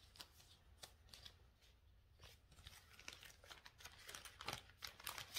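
Faint, scattered rustles and light clicks of cross-stitch materials being handled, growing more frequent toward the end.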